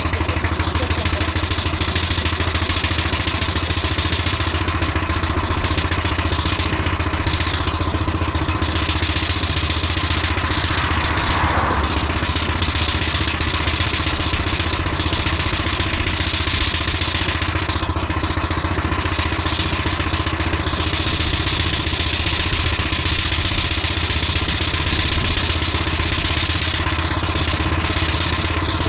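Miniature steam traction engine under way on the road, a steady mechanical clatter over a low running drone.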